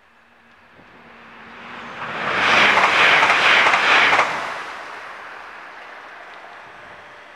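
Passenger train approaching and passing over a level crossing at speed: it grows from about a second in, is loud for about two seconds as it goes by, then fades away.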